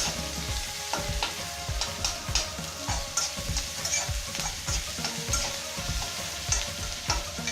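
Chopped onion sizzling in hot oil in a pan, frying toward golden brown. A spatula stirs it with frequent short knocks and scrapes against the pan.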